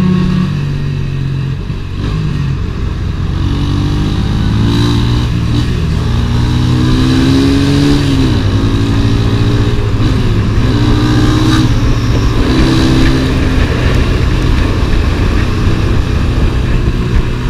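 Zamco motorcycle engine pulling through the gears, its pitch climbing and then dropping at each of several shifts, over a steady rush of wind.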